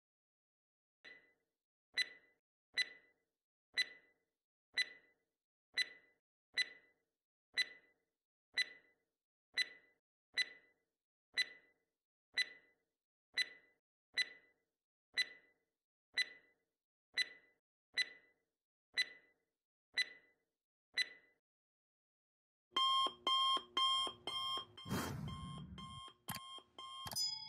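Quiz-timer sound effect: a clock ticking about once a second for some twenty seconds, then an alarm-clock ring starting about 23 seconds in, signalling that time is up for the question.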